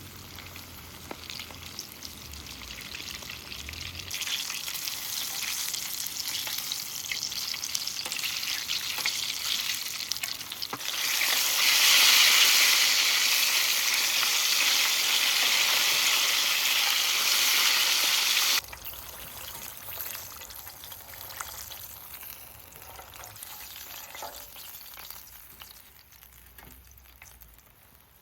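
Chicken deep-frying in hot oil: a dense sizzle that builds, is loudest for several seconds, then drops suddenly about two-thirds of the way through to a quieter crackle that fades out.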